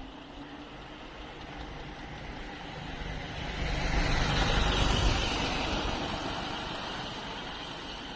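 A motor vehicle passing by: its engine and tyre noise grows louder, is loudest about halfway through, then fades away.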